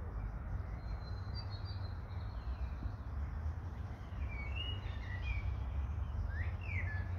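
Small birds chirping in short, quick calls, mostly in the second half, over a steady low outdoor rumble.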